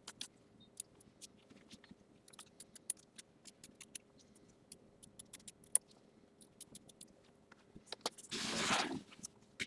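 Small scissors snipping fabric in quick, irregular clicks while trimming away excess appliqué fabric around a machine-embroidered design. A louder rustle of handled fabric comes about eight seconds in.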